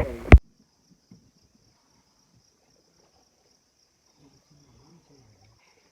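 Faint steady high-pitched insect chorus in woodland, after a brief loud noise that cuts off suddenly about half a second in.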